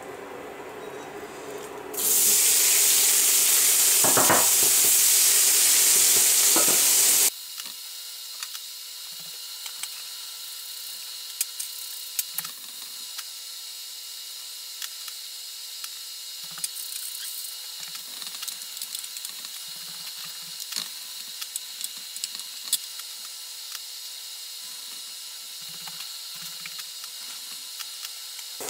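Diced potatoes and carrots sizzling in hot oil in a frying pan, loudly for about five seconds from two seconds in. The sizzle then cuts off abruptly to a much quieter steady sizzle with scattered crackles, soft knocks and a faint steady whine.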